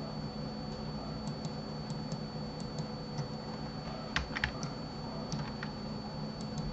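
Computer keyboard and mouse clicks: scattered single clicks, with a quick cluster of louder ones about four seconds in, over a steady low hum.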